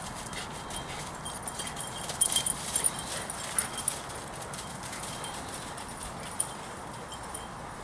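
Two dogs romping and wrestling: scattered thuds of paws on soft ground and short tinkles of metal collar tags, over a steady background hiss. The jingles and thuds come in bunches a couple of seconds in and grow sparser as the dogs move off.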